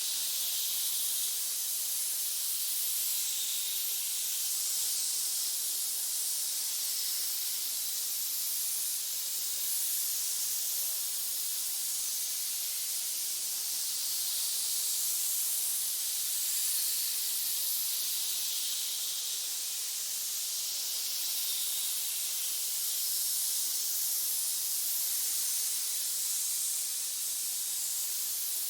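Snake hissing: a steady, high hiss that swells and eases slightly every few seconds.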